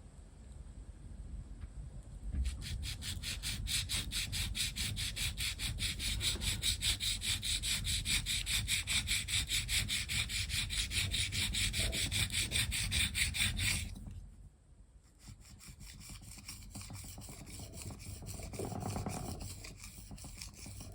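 Leather knife blade being rubbed back and forth on a wet whetstone: a steady run of rhythmic scraping strokes that stops for a moment about two-thirds of the way in, then resumes more quietly.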